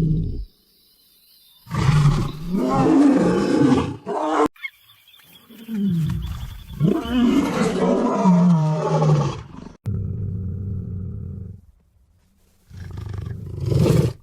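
A tiger roaring in about four long bouts with short pauses between them.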